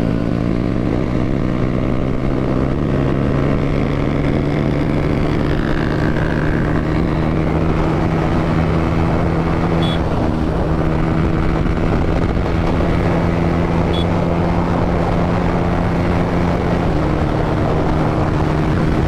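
Yamaha 155 cc single-cylinder motorcycle engine with an Akrapovic exhaust and its DB killer removed, running at a steady road speed with wind rush, its pitch holding nearly constant with a slight shift near the end.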